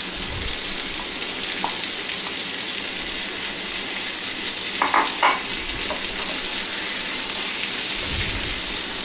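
Sliced onions sizzling in hot oil in a nonstick frying pan, a steady hiss. Two short sharp sounds come about five seconds in, and a spatula stirs the onions near the end.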